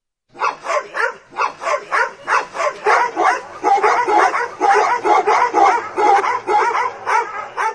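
A dog barking rapidly and steadily, about four barks a second.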